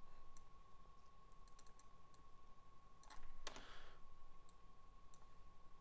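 Faint, scattered clicks of a computer mouse during node editing, with a brief louder rustle a little after three seconds and a faint steady whine underneath.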